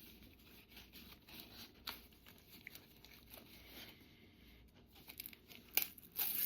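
Faint rustling and tearing of paper packaging being handled, with a few sharper crinkles and clicks near the end.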